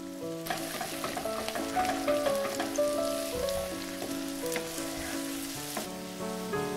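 Beaten eggs sizzling in a frying pan as a wooden spatula stirs them, with small ticks of the spatula against the pan, from about half a second in until near the end. Background music with sustained notes plays throughout.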